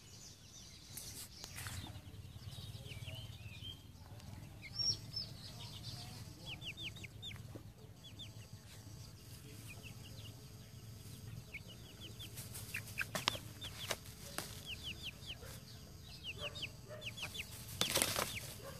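Young chickens peeping: short, high, falling chirps in quick runs of three or four, repeated through most of the stretch. A few sharp knocks break in, the loudest near the end.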